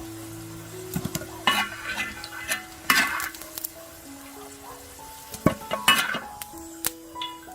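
Beef sizzling on a hot sadj griddle while a metal utensil scrapes and clinks against the iron several times, over soft background music with held notes.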